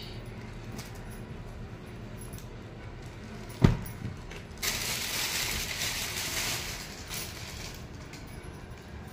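A single dull thump about three and a half seconds in, then about three seconds of crinkling plastic packaging as bedsheets are handled and unwrapped.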